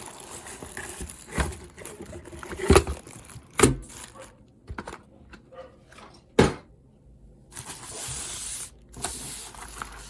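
Packaging being handled while a keyboard is unboxed: scratchy rustling of box and wrapping, with several sharp knocks, the loudest about six seconds in.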